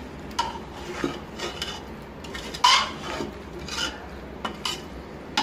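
A metal spoon scraping and clinking against the sides of a pressure cooker as potato and cauliflower pieces are stirred into the masala. The strokes come irregularly, with the loudest scrape about two and a half seconds in.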